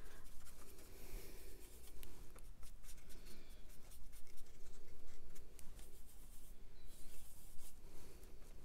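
Paintbrush scrubbing and dabbing in watercolour paint pans: a soft rubbing with many small ticks as the bristles and ferrule knock on the plastic pans, mixing black paint with blue.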